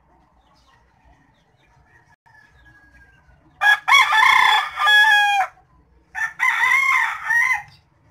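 A rooster crowing twice, each crow a loud drawn-out call of about two seconds; the first begins about three and a half seconds in and the second follows after a short gap.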